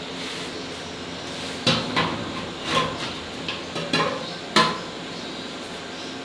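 Metal cooking utensils knocking and clanking: about six sharp, ringing strikes at irregular intervals through the middle, over a steady hum.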